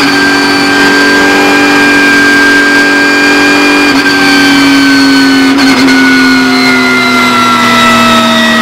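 Porsche 911 GT3 Cup race car's flat-six engine heard from onboard, running loud with its pitch sinking slowly, with brief dips about four and five and a half seconds in.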